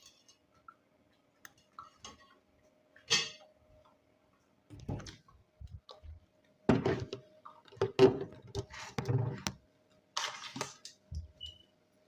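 Dishes and cutlery clattering and being handled in scattered short bursts, busiest in the second half, over a faint steady hum.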